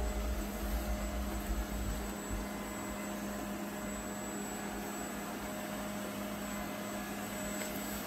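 Laresar Evol3 robot vacuum running on a hardwood floor: a steady whir of its suction motor with a constant hum, and a low rumble during the first couple of seconds.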